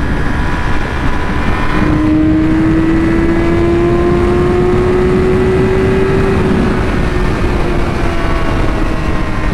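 Yamaha R6 inline-four sport bike engine on its stock exhaust, pulling under throttle at highway speed: one steady engine note that climbs slowly in pitch for a few seconds, then eases back a little as the throttle comes off. Heavy wind rush on the helmet-mounted microphone lies under it.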